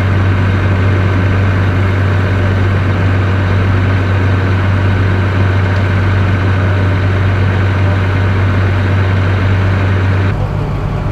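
Fire apparatus engine running steadily at the fireground, a loud constant low hum that cuts off abruptly about a second before the end.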